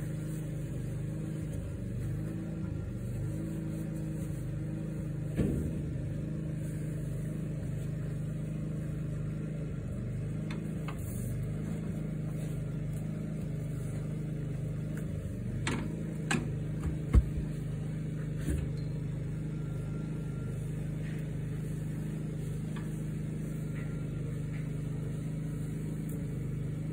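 An engine running steadily at an even idle. Sharp metal clanks from the steel cattle chute break in once about five seconds in and again as a few louder ones a little past the middle.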